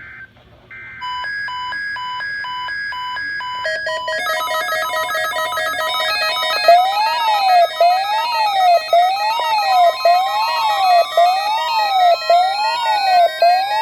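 Several EAS receivers and weather radios going off at once for an Emergency Alert System test. First come the buzzing SAME header data bursts, then overlapping electronic alert tones: steady beeps and a warbling alarm that sweeps up and down about once a second, growing denser.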